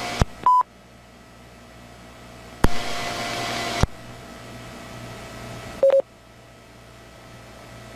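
Police radio channel between transmissions: clicks as the channel keys up and drops, a short high beep about half a second in, a second burst of open-channel hiss lasting about a second with clicks at each end, and a short lower beep near the six-second mark, over a faint steady hum.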